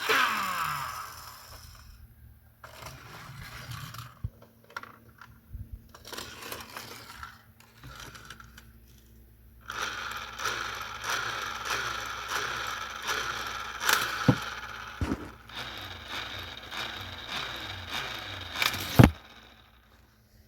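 Hot Wheels die-cast toy car rolling and rattling along a plastic track set, with clicks and knocks from the playset's plastic mechanisms. A sharp, loud knock comes near the end, after which the rolling stops.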